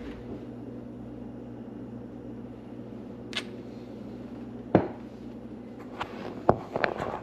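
Kitchen handling sounds: scattered sharp knocks and clicks of utensils and cookware being moved and set down, a strong knock about five seconds in and a quick cluster near the end, over a steady low hum.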